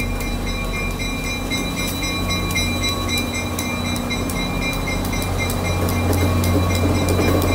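CTrail GP40-3H diesel locomotive rolling in at the head of a Shore Line East train: a steady low diesel engine hum with a thin high whine, and wheel clicks on the rails that grow louder from about six seconds in as it draws close.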